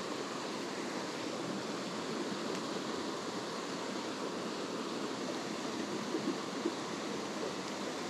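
Mountain stream flowing: a steady rush of water.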